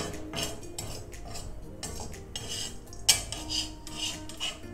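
A perforated steel skimmer scraping and clinking against an iron kadai as ghee-fried coconut pieces are scooped out, in a string of short scrapes with one sharp clink about two-thirds of the way in.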